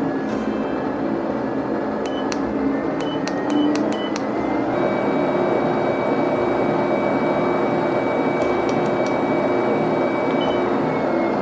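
Egojin J2 walking pad treadmill running, its motor and belt giving a steady hum with a whine. A few short beeps come as the speed is raised from 6.0 to 8.0, and the whine rises in pitch about four seconds in. More beeps near the end, and the whine starts to drop as the speed comes back down.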